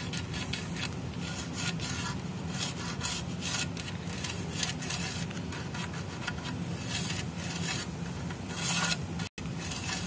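A marking tool scratching along the edge of a metal template laid on an aluminium window profile, tracing the outline of the lock slot in many short, irregular strokes over a steady low hum.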